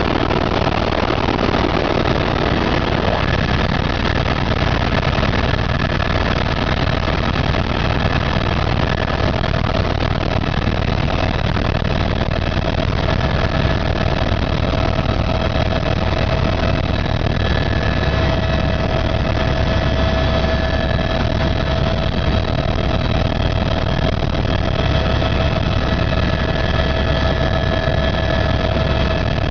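Helicopter engine and rotor running steadily: a constant loud drone with a steady high whine over it.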